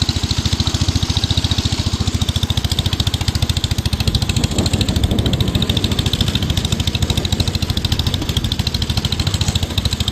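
Wheel Horse 245 hydrostatic riding lawn tractor's engine running steadily, an even, rapid beat of firing pulses.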